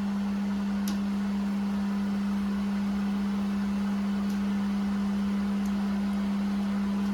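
A steady low hum on one unchanging pitch, with a few faint clicks.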